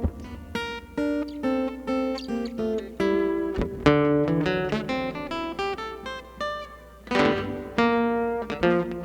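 Acoustic guitar playing an instrumental break in a country song: a run of picked single notes mixed with brief strums, two fuller strums standing out about three and a half and seven seconds in.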